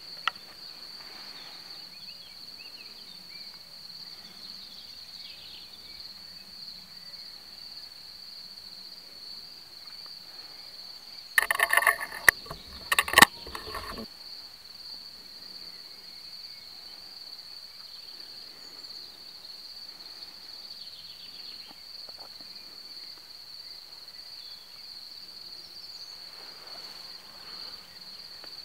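A steady, high-pitched cricket trill throughout. About twelve seconds in, a loud burst of rustling and knocks lasts about two and a half seconds as the rifle-mounted camera is handled.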